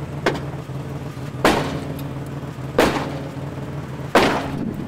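Heavy hammer blows from a maul striking the front of a car at its airbag crash sensor: a light knock near the start, then three hard strikes about a second and a half apart. The airbags do not go off.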